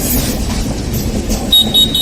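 Coaches of an express passenger train running over the rails with a steady rumble. From about one and a half seconds in, the track gives a few short, high-pitched chirps in quick succession.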